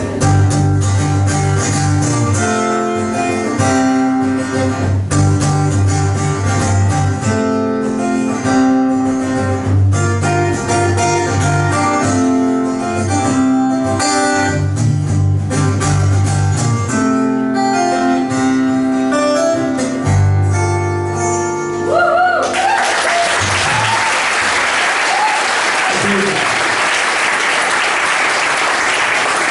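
Acoustic guitar strummed in a steady rhythm of chords with a strong bass, stopping about three quarters of the way through; the audience then applauds and cheers, with a few whoops.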